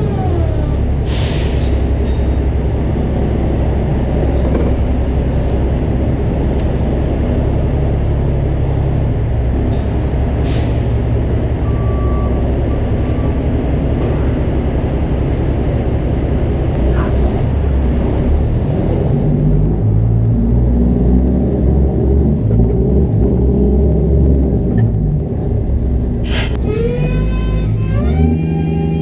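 Kenworth C500's straight-piped Cummins diesel running steadily as the truck rolls at low speed, with short air-brake hisses about a second in, about ten seconds in and near the end.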